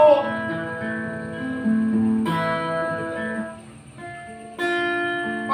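Acoustic guitar playing slow strummed chords, a new chord struck about every two seconds and left to ring, dying away briefly before the last one.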